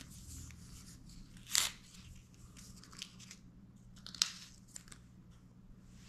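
Paper and plastic backing of a silicone screen-protector film rustling and crinkling as fingers peel and tear at it. Two sharp crisp tearing sounds stand out, about a second and a half in and again about four seconds in, with smaller crackles between, over a low steady hum.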